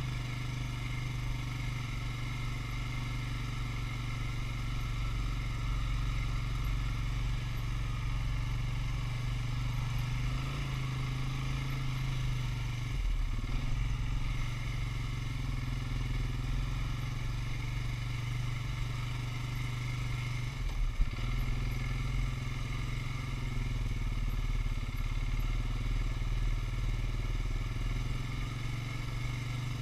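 Polaris Sportsman 570 ATV's single-cylinder engine running steadily as the quad rolls along a dirt trail, with a single sharp knock about twenty seconds in.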